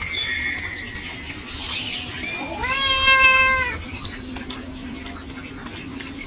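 A cat meowing: one drawn-out meow, rising and then held steady, starting about two and a half seconds in, with a thinner high call near the start.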